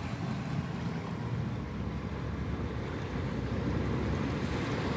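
Steady low rumble and rushing of a car moving through standing floodwater, heard from inside the cabin.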